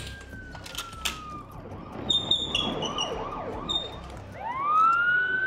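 Emergency-vehicle sirens: a long wail tone slowly falling away, then a quicker yelping warble of about three sweeps a second with short higher tones over it, and about four seconds in a louder wail rises and holds.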